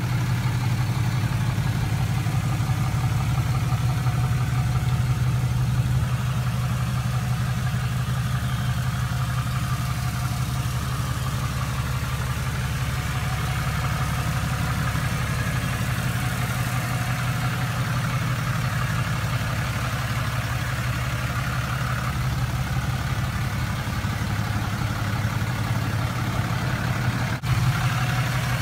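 2012 Ram 2500's 6.7-litre Cummins turbo-diesel inline-six idling steadily through its upgraded exhaust, a constant low rumble.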